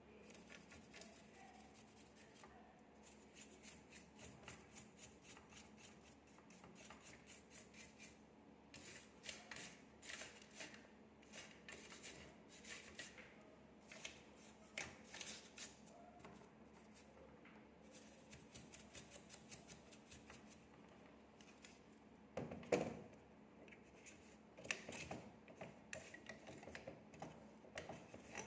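Light work with small hand tools on a graphics card: runs of rapid small clicks and scraping, with one louder knock about two-thirds of the way through as a part or tool is set down.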